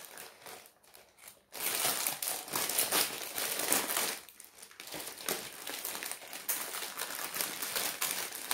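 Clear plastic packaging crinkling as it is handled and folded around a rolled canvas. It starts about a second and a half in and goes on with a short lull near the middle.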